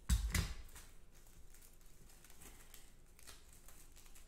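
Two quick knocks right at the start, then faint, scattered rustling and tapping of a thick wad of folded, cut paper being handled.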